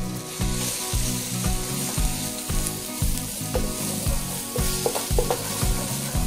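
Minced garlic, ginger and lemongrass sizzling in hot oil in a nonstick pan while being stirred with a wooden spatula. The aromatics are toasting, and the spatula scrapes and taps on the pan, most of the taps coming near the end.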